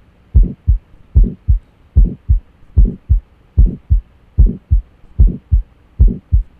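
Recorded heart sounds of aortic stenosis: a regular lub-dub about 73 times a minute, each broader first sound carrying an ejection systolic murmur before the short second sound.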